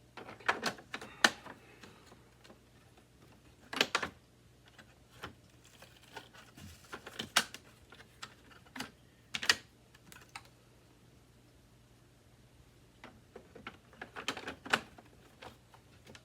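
Hard plastic parts of a Hoover WindTunnel 2 upright vacuum clicking and knocking as they are handled and fitted back together. The sharp clicks come in scattered clusters: early on, around four seconds, in the middle and near the end.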